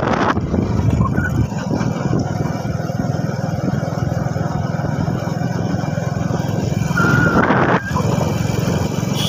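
Engine of a moving road vehicle running at a steady cruise, with wind and road noise, briefly louder about seven seconds in.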